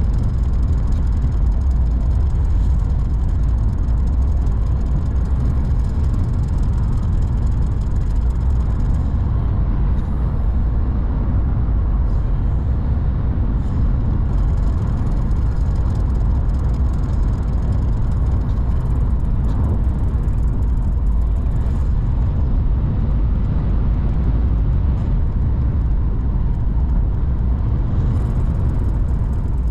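Steady low road and engine noise of a moving car, heard from inside the cabin.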